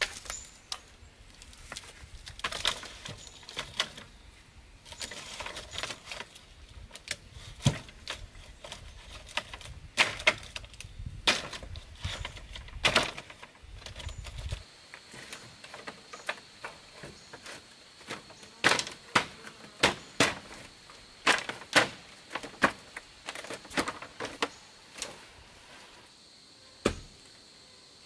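Split, flattened bamboo slats clattering and cracking as they are laid and pressed down onto a bamboo floor frame: a run of irregular sharp clacks, some loud, thinning out near the end.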